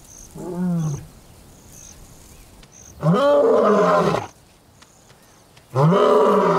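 Male lion roaring: a short call about half a second in, then two long, loud roars about three and six seconds in.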